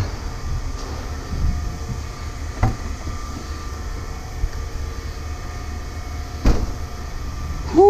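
Steady low mechanical rumble, with a few short knocks about a second and a half in, near the three-second mark and again near the end.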